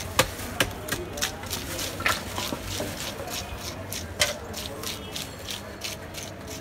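Irregular clicks, knocks and plastic rustling as cut fish pieces are handled and packed into a plastic bag, with voices in the background.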